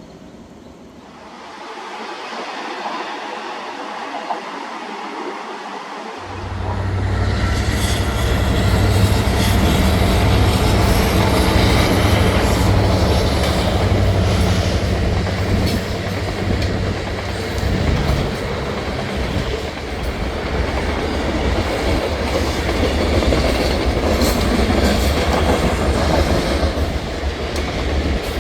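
Freight train passing close by: the sound builds from about two seconds in, the diesel locomotives' low rumble comes in suddenly about six seconds in, then the cars roll past with a steady clatter of wheels over the rails.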